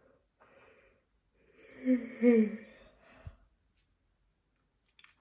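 A woman yawning aloud: a short breath in, then a drawn-out voiced yawn of about a second and a half, sliding slightly down in pitch.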